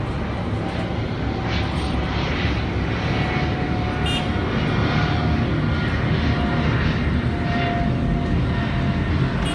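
A Boeing 777-200ER's twin GE90 turbofan engines heard from the ground as the airliner flies away: a steady low rumble with a faint whine above it.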